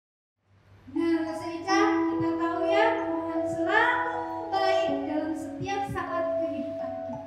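A praise song begins about a second in after a brief silence: singing voices over a backing of held instrument notes.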